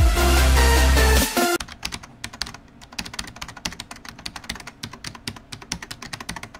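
Electronic music with heavy bass for about a second and a half, cutting off abruptly into a fast, dense run of computer-keyboard typing clicks.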